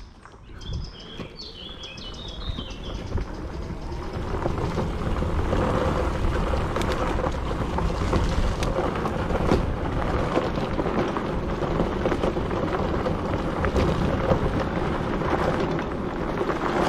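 Wind buffeting the microphone and tyres rumbling over a dirt trail as an electric bike picks up speed through the woods, building over the first few seconds and then holding steady. A bird chirps a few times near the start.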